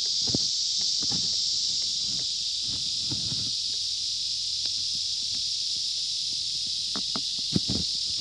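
Steady, high-pitched insect chorus droning continuously, with scattered light taps and knocks, a sharper knock about three-quarters of the way in.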